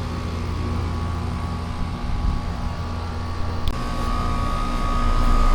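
Central air-conditioning outdoor condensing unit running: a steady low hum of compressor and fan, with one short click about two-thirds of the way in and the hum swelling near the end.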